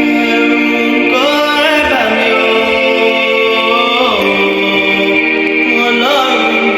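Worship song with singing voices holding long, sustained notes that slide to new pitches every second or two.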